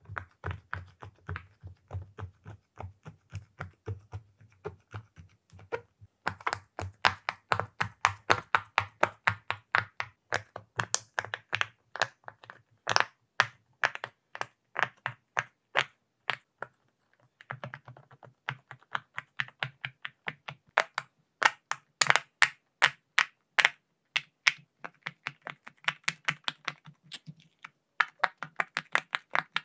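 Silicone pop-it fidget toy bubbles being pressed down one after another, a quick run of sharp little pops at about four a second, with a short break a little past halfway.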